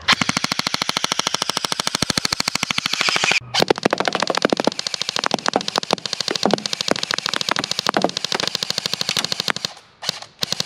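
Gameface Ripcord M4 electric airsoft rifle with a full metal gearbox firing on full auto: a long, rapid, even string of shots. The string breaks off for a moment about three and a half seconds in, then runs on until near the end. Louder single pops of balloons being hit stand out within the firing, and a few separate sharp cracks come near the end.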